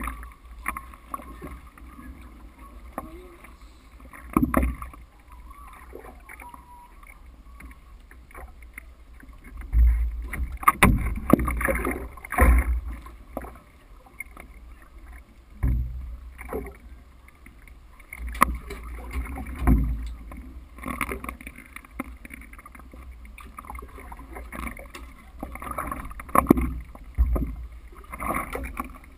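Stand-up paddleboard paddle strokes and water sloshing against the board, in irregular splashes and knocks with louder clusters about ten to thirteen seconds in and again near the end.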